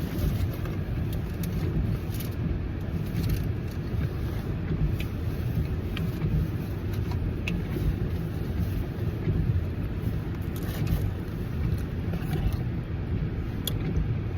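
Steady low rumble of a car, heard from inside the cabin, with a few faint light clicks.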